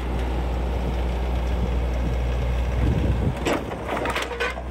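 Branson 3020 compact tractor's diesel engine running steadily with a low rumble while its front loader holds a load. A few knocks and creaks come through about three and a half to four and a half seconds in.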